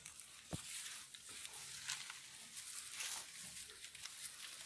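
Faint rustling and scattered light clicks and scrapes over a steady high hiss: people moving about in dry grass and on rock.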